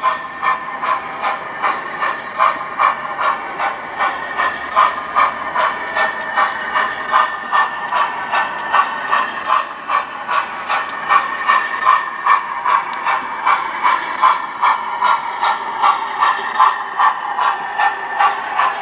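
Hornby TTS sound decoder in an OO gauge model of LNER A3 Flying Scotsman playing steam-locomotive exhaust chuffs through the model's small speaker as it runs at speed, a steady beat of about two and a half hissing chuffs a second.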